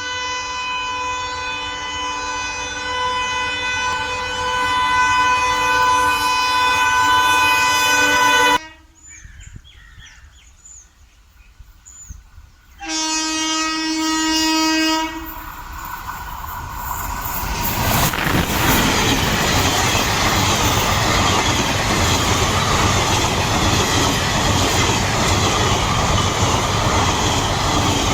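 Indian Railways DEMU passenger train sounding a long horn blast, then a second shorter blast about four seconds later. From about 17 seconds in, it rolls past with steady wheel noise and clickety-clack over the rail joints.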